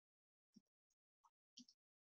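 Faint computer keyboard keystrokes, about four quick taps roughly a third of a second apart, against near silence.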